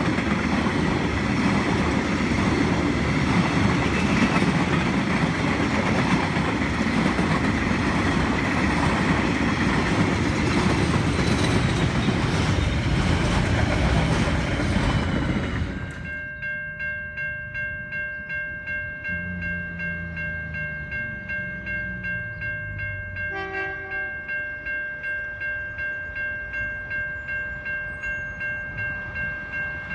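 A train passing close: a loud, steady rumble and rattle of wheels on rail. About halfway through the sound cuts abruptly to a quieter passage with steady high ringing tones and a regular clicking about twice a second.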